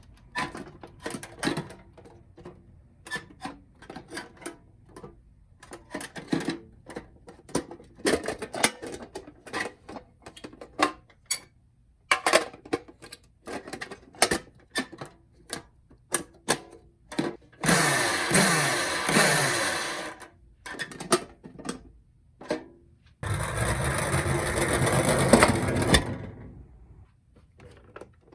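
Toy ambulance minicars being handled: many separate clicks and knocks, with two longer stretches of continuous clattering lasting two to three seconds each, about two-thirds of the way through and again near the end.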